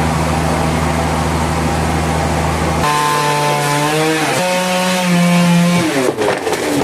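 Engine-driven saw running while cutting timber: a steady low hum gives way suddenly, about three seconds in, to a higher engine note that drops in pitch in steps and slides lower near the end as it works through the wood.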